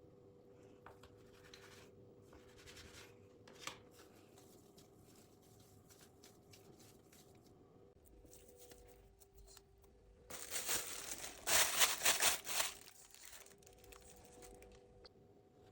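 Quiet kitchen handling noises over a faint steady hum, then a loud rustling crinkle lasting about two and a half seconds, about ten seconds in.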